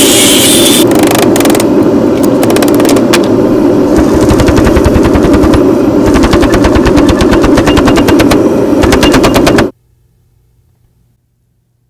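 An angle grinder grinding steel, followed from about a second in by a power hammer striking a glowing steel billet in rapid, even blows over a steady machine hum. The hammering cuts off abruptly near the end.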